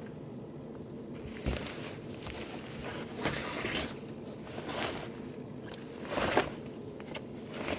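A self-inflating camping mattress being shifted and pressed into place. Its fabric rustles and scuffs in several short bursts over a steady low hum.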